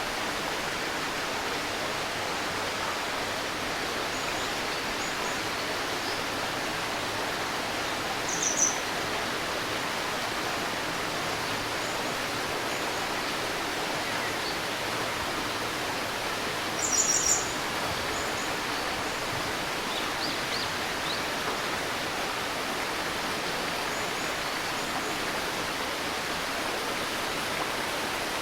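Steady babbling of a shallow river, with a few brief high bird chirps, the loudest about a third of the way in and again just past halfway.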